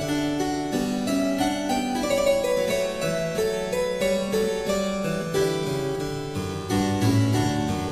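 Background music played on harpsichord: a steady stream of quick notes.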